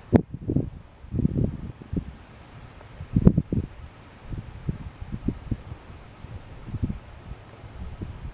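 Crickets chirping in a steady, high, continuous trill, under irregular low rumbles and two sharp knocks, one at the start and one about three seconds in.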